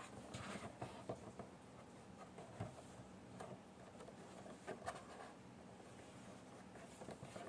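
Faint, scattered clicks and crinkles of a clear plastic blister pack and its card backing being handled and turned over.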